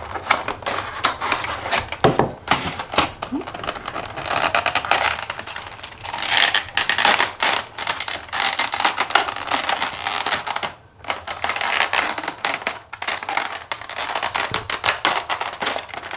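Toy packaging being opened by hand: a cardboard window box, then a thin clear plastic blister tray crackling and clicking as it is flexed and pried apart.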